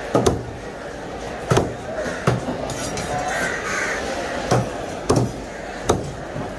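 A heavy cleaver chopping fish into pieces on a wooden log chopping block. About seven sharp chops come at irregular intervals, two in quick succession at the start.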